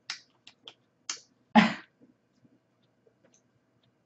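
Close-up eating mouth sounds: a few short lip smacks or clicks, then one louder, longer slurp or throat sound about a second and a half in.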